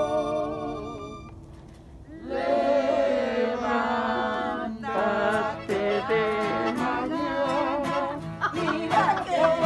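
A small group singing along to acoustic guitars, violin and accordion. A held chord dies away about a second in, and the singing and playing start up again about two seconds in.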